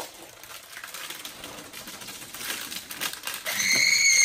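Crinkling of a small plastic bag of foam beads, with light clicks and rustles as it is handled. Near the end a louder, high-pitched held squeal cuts in.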